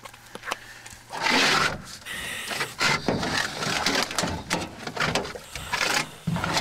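Scuba gear and a wetsuited diver knocking, clicking and rubbing against a small metal boat as he shifts about on hands and knees; a short loud rushing noise about a second in, then a busy run of knocks and clatter.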